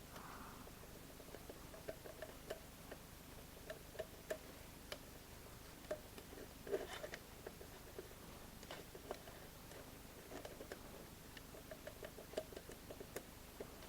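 Faint, irregular small clicks and taps over quiet room tone, a little denser about halfway through.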